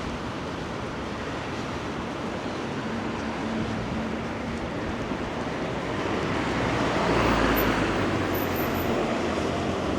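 Traffic noise on a wet street: a vehicle passes, swelling to its loudest about seven seconds in and then easing off.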